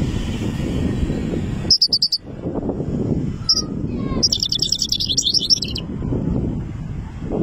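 Three-month-old juvenile European goldfinch singing in rapid, high twittering phrases. A short burst comes about two seconds in and a single note about a second later, then a longer trilled phrase of about a second and a half. A steady low rumble runs underneath.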